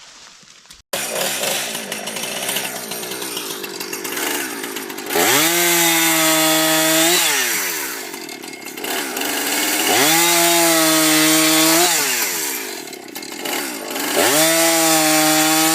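Chainsaw running, throttled up three times; each time it rises to a high, steady pitch, holds it for about two seconds while cutting, then drops back. The sound starts abruptly about a second in.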